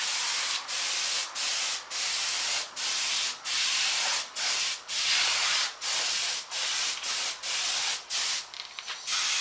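Paint spray gun hissing in short repeated bursts, about one and a half a second, as acrylic paint is sprayed onto a wooden speaker enclosure, with a brief pause near the end.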